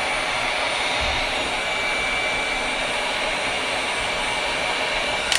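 Electric heat gun blowing steadily with a faint high whine, warming a shoe heel to reactivate dried contact cement. It switches off with a click at the very end.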